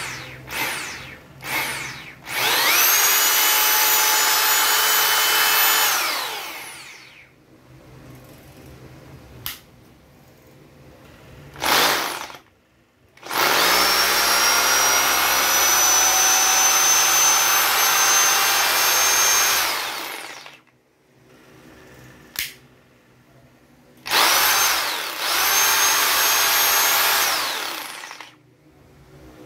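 Bosch GBH 2-28 DFV rotary hammer's motor run in short bursts: a few quick trigger blips, then several runs of a few seconds each. Each run has a rising whine as the motor spins up, a steady whine while it runs, and a falling whine as it coasts to a stop.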